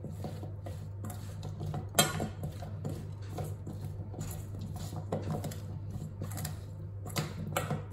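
Spoon stirring chopped carrots and grated Parmesan in a stainless steel mixing bowl: soft scraping and small clinks, with a sharper knock against the bowl about two seconds in and a couple more near the end.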